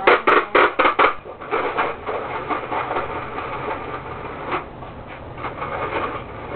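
Hand-cranked toy DQ Blizzard maker being turned, its gears churning with a rattling, clattering noise. About five sharp clacks come roughly three a second at the start, then the rattle runs on steadily.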